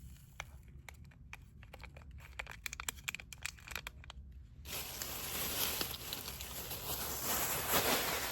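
Plastic bag being handled and crinkled: scattered crackles at first, then a continuous dense rustle from about halfway, as the bag is gathered up to be tied.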